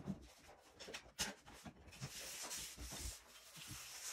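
Thin plastic masking film rustling and rubbing under hands as it is smoothed against the window, with a few short crinkles and then a longer rustle about two seconds in.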